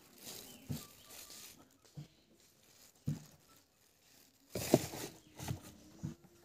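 Handling noises from a spin-on oil filter in its plastic bag and cardboard box: plastic crinkling and a few short knocks, the loudest about two-thirds of the way through.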